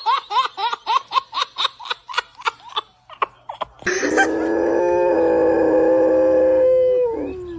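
A fast run of short rising-and-falling calls, about four a second, fading out. Then, about four seconds in, a dog breaks into one long, loud howl held at a steady pitch for about three seconds, dropping in pitch as it ends.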